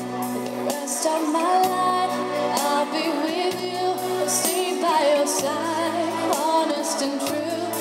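A woman singing a song live into a microphone, her voice wavering with vibrato, backed by keyboard accompaniment with sustained bass notes.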